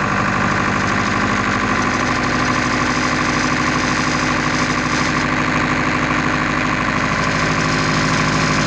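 Powertrac Euro 55 tractor's diesel engine running at raised speed in neutral, about 1,600–1,700 rpm, steady, its pitch stepping up slightly about two seconds in. Around this speed the engine hits a resonance that sets the left mudguard vibrating hard, which the owner takes for a manufacturing fault.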